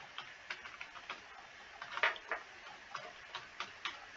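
Computer keyboard keys clicking as an email address is typed: about a dozen quick, irregular keystrokes, one louder than the rest about halfway through.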